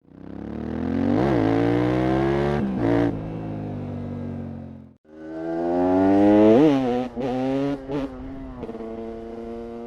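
KTM 690 SMC R's single-cylinder engine revving: the pitch climbs to a sharp peak and falls back, then after a brief cut about halfway the bike revs up again with quick breaks in the sound like gear changes before settling to a steady note.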